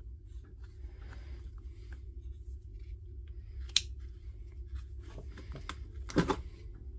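Small scrapes and clicks of a hand tool stripping the insulation off a thin electrical wire, with a sharper snip about four seconds in, over a steady low hum.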